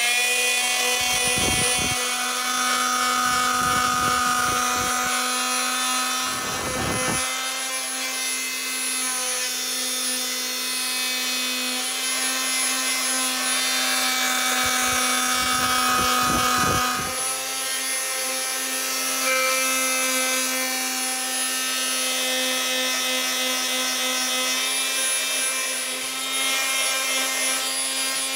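Electric detail sander with a triangular pad running steadily with a motor whine while sanding a rusty steel open-end wrench. In the first half there are a few spells of low rumble.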